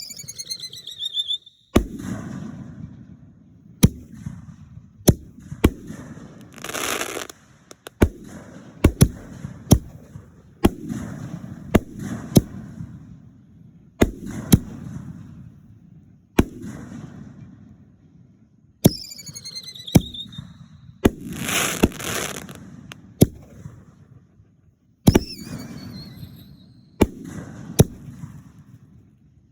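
Aerial fireworks going off in a steady series of sharp bangs, each followed by a rolling, echoing rumble. A few times a whistle falls in pitch, and twice a longer crackling rush sounds.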